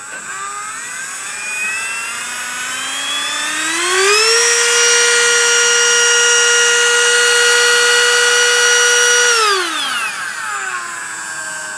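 Dremel 8220 cordless rotary tool running free, its speed dialed up from low to a steady high whine over about four seconds, held there for about five seconds, then dialed back down to a low whine.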